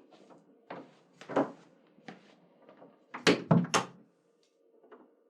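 A door being handled and shut: a series of knocks and clunks, the loudest cluster about three seconds in, over a faint steady room hum.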